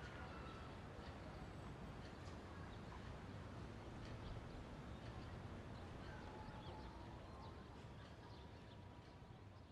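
Faint outdoor ambience: a low steady rumble with scattered faint bird chirps, fading out near the end.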